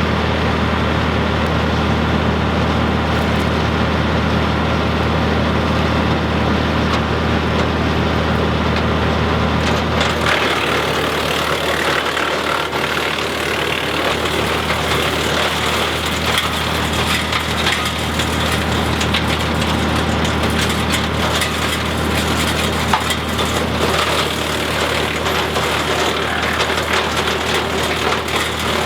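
Mahindra tractor engine running a WoodMaxx PTO wood chipper at its 540 RPM PTO speed; about ten seconds in, branches go into the chipper and it chews through them with dense crackling and splintering over the engine.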